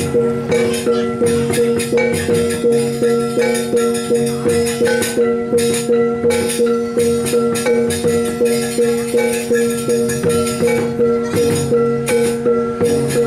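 Balinese gamelan music with metal percussion pulsing on a fast, even beat over a ringing held tone, and cymbal clashes throughout.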